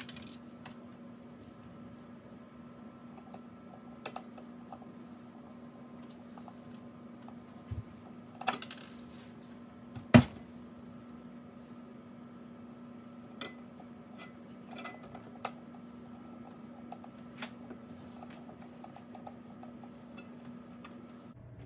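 Scattered small clicks and clinks of a screwdriver, screws and the cover being refitted onto a solar inverter's casing, with one loud knock about ten seconds in. A faint steady hum sits underneath.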